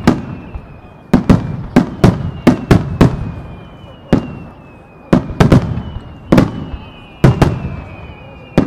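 Starmine fireworks display: a rapid, irregular series of sharp aerial shell bursts, about fifteen in all, each trailing off in an echo. A faint high whistle falls slowly in pitch behind the bangs.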